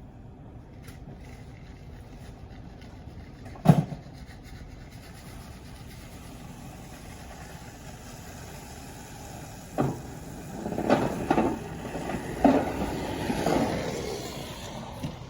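A steady low rumble with a single sharp bang about four seconds in. Near ten seconds a second bang comes, followed by a run of knocks and clunks for a few seconds.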